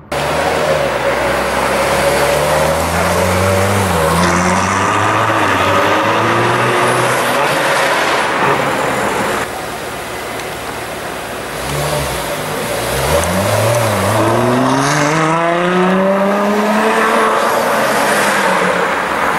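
Ferrari F12tdf's naturally aspirated V12 accelerating hard through the gears. The engine note rises steeply and dips briefly at an upshift, goes quieter for a few seconds in the middle, then climbs steeply again.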